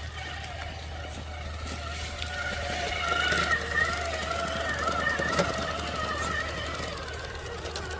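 Radio-controlled scale rock crawler's electric motor and gear drive whining. The pitch wavers up and down with the throttle and grows louder through the middle, with a couple of sharp clicks along the way.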